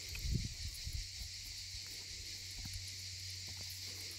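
Steady high-pitched drone of summer insects, with a few low thuds in the first second.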